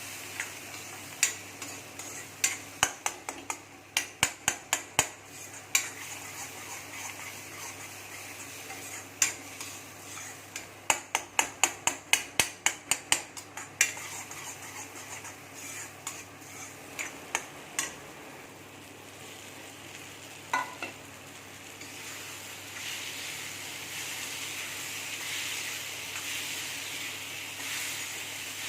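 Karela (bitter gourd) frying in a pan while being stirred: quick runs of spatula knocks and scrapes against the pan, several a second, come in two spells in the first half, over a steady sizzle that grows louder near the end.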